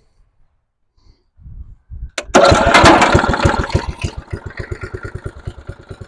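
Simplicity rear-engine riding mower's engine being started after sitting for 32 years: a brief crank, then it catches about two seconds in. It runs loud at first, then settles into a steady, evenly paced firing rhythm.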